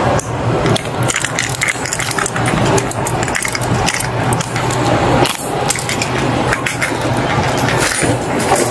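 Steel chain handcuffs being unlocked with a key and taken off a wrist: repeated short metallic clicks and rattles over a steady low hum.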